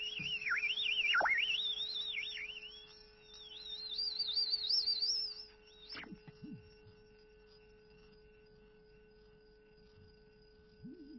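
A single electronic sine tone sweeps rapidly up and down at a high pitch, with sudden plunges. About six seconds in it drops to a few low swooping glides, over a steady faint hum.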